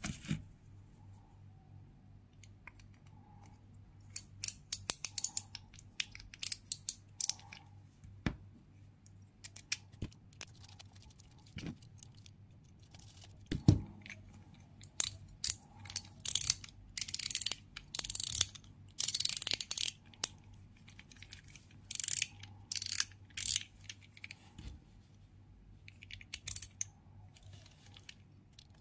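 Small screws being driven with a precision screwdriver into a metal fidget slider, its small parts handled between the fingers: irregular bursts of clicking and scraping, with a single sharp knock about halfway.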